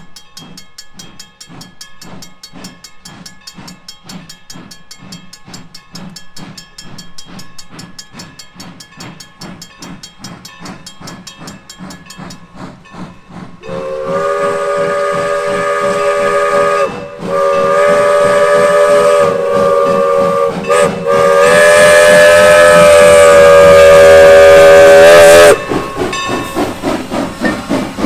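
N&W #475, a 4-8-0 steam locomotive, working steadily with a regular chuff of exhaust beats as it approaches. About 14 s in, its chime whistle sounds a chord in the grade-crossing signal of long, long, short, long. The exhaust beats come back close and loud as the engine reaches the crossing.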